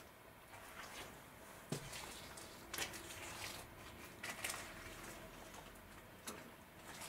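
Faint footsteps: irregular scuffs and sharp clicks on a gritty cellar floor, a second or so apart.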